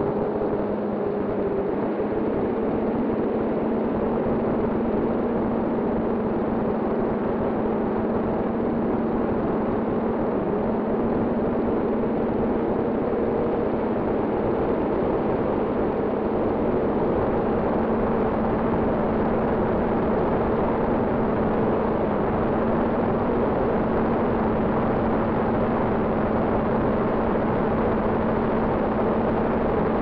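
Steady hum of a camera drone's motors and propellers, with a constant rush of air on the onboard microphone. The pitch dips slightly about a second in, then holds steady.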